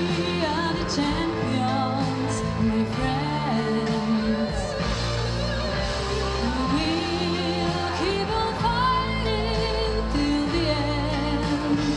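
A young woman singing a song into a microphone, holding wavering notes with vibrato, over a steady instrumental accompaniment.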